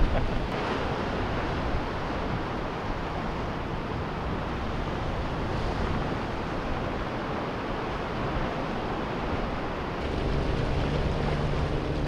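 Steady wind blowing on the microphone, with water washing against the shore. About ten seconds in, a low, steady engine hum joins in.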